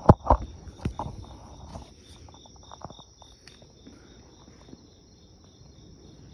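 Crickets chirping at night in a steady high, rapidly pulsing trill. A few loud sharp knocks within the first second.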